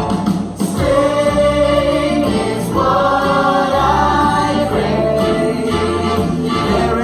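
A song playing, with singing over a backing track.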